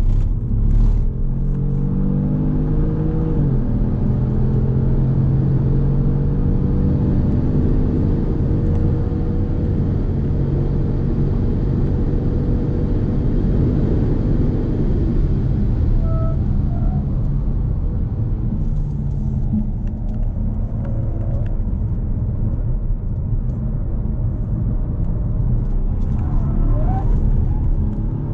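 2018 Kia Stinger GT's twin-turbo 3.3-litre V6 driven hard on a racetrack. The revs climb and drop at a gear change about three seconds in, then the engine pulls steadily for around ten seconds before the driver eases off and the sound turns rougher and lower for the rest.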